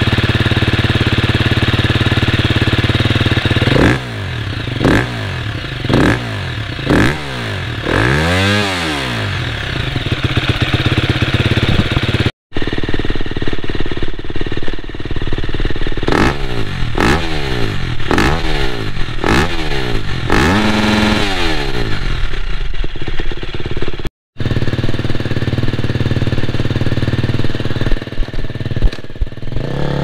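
A KTM 250 EXC-F single-cylinder four-stroke dirt bike engine idles and is revved in several short throttle blips, each rising and falling in pitch. It is heard first through its stock silencer, then through an FMF Power Core 4 aftermarket silencer, then on the stock pipe again, revving unevenly near the end.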